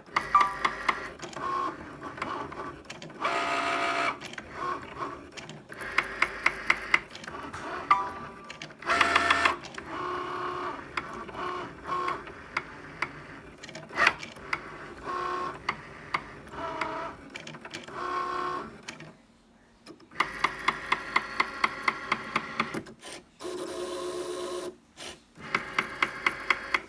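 Cricut Maker cutting machine running a cut: its motors whir in stretches as the carriage moves back and forth, broken by runs of sharp knocks several a second. The owner calls this a loud knocking noise, a fault she has reported.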